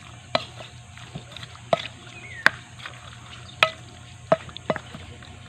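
A utensil knocking and clinking against a bowl, about six separate clinks, some ringing briefly, while chicken gizzards are stirred in their marinade.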